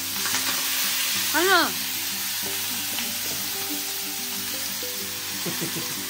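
Fresh leafy greens (saag) sizzling in hot oil in a frying pan, stirred with a wooden spoon; the sizzle is strongest as the greens go in during the first two seconds, then settles to a steady hiss. About one and a half seconds in comes a brief rising-and-falling pitched sound.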